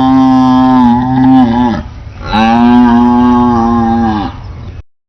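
Buffalo mooing: two long, steady calls, each dropping in pitch at its end; the first is already under way and breaks off about two seconds in, and the second follows half a second later and fades out near the end.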